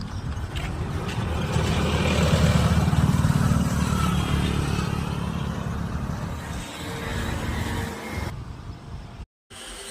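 A motor vehicle's engine running close by, getting louder over the first two to three seconds and then slowly fading. The sound cuts out completely for a moment near the end.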